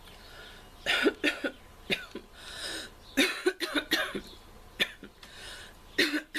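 A girl coughing in several short bouts of two or three coughs, with breaths drawn in between; her cold has left her throat so sore that the cough sounds almost croupy.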